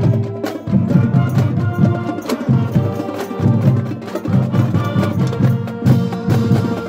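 School marching band music: drums keep a busy beat under sustained brass and woodwind notes.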